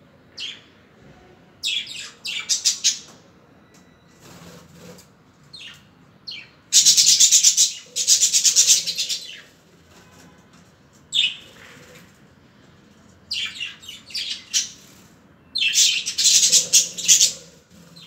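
Budgerigars chirping and chattering: bursts of rapid, scratchy chirps that come and go with short pauses between them, loudest around the middle and again near the end.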